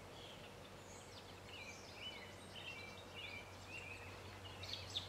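Birds chirping and singing faintly in short rising and falling calls, growing busier toward the end, over a low steady background hum.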